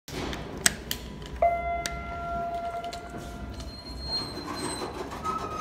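Elevator up call button clicked, then a single steady chime rings for about two seconds as the car answers the call, over a low rumble.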